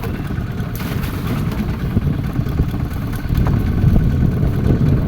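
Fishing boat's engine running with a steady low rumble, with a brief rush of noise about a second in.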